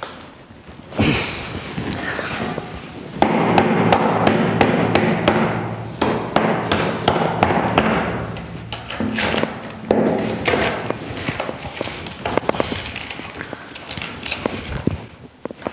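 Hardened gypsum plaster patties being pried and torn by hand off a primed extruded polystyrene board: crunching, cracking and scraping, dense with clicks from about three to ten seconds in, then scattered crackles. The bond takes a lot of force to break, with plaster tearing away partly with the primer and partly pulling out polystyrene.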